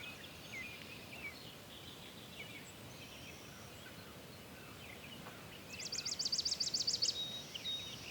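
Small birds chirping and singing over faint outdoor background noise, with a fast, high trill of about ten notes lasting just over a second, about six seconds in, the loudest sound.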